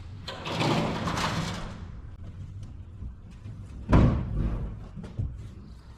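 Scraping and rustling for a couple of seconds, then one heavy thump about four seconds in, followed by a few lighter knocks.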